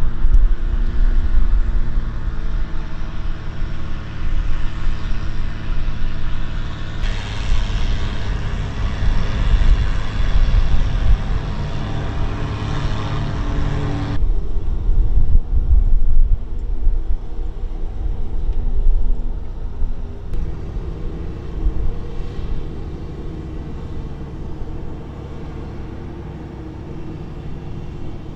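C-130J Super Hercules turboprop aircraft running on the flight line: a steady low rumble with a steady hum of several pitches. The sound changes abruptly about seven and again about fourteen seconds in.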